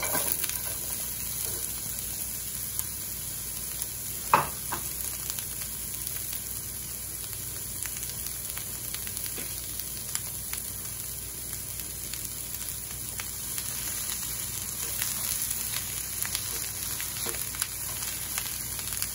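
Sliced onions sizzling as they fry in a hot nonstick pan with a little spray olive oil. A single sharp knock comes about four seconds in, and a wooden spoon stirs the onions near the end.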